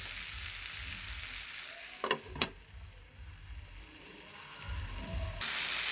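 Vegetables sizzling as they fry in a nonstick pan. About two seconds in, a glass lid is set on with two quick clinks, and the sizzle turns quieter and duller under it, then comes back at full strength near the end.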